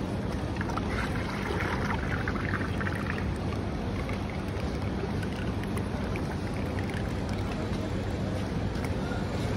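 Thick yogurt pouring from a plastic bucket into a large aluminium pot, with a soft splattering for a couple of seconds about a second in. Over a steady street rumble of traffic.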